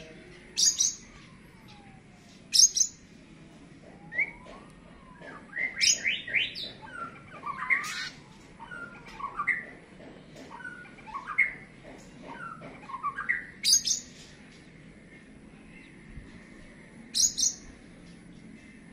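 Oriental magpie-robin (kacer) calling: several loud, harsh, high-pitched bursts with short whistled notes and slurs in between. These are the challenge calls a kacer gives toward a rival, here right after its bath.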